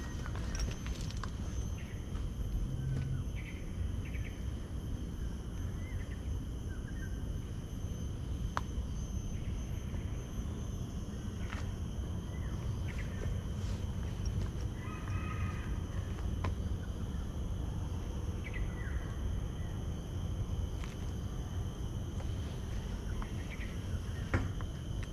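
Insects buzzing steadily in several high-pitched tones, with short bird calls every few seconds and soft footsteps on a garden path.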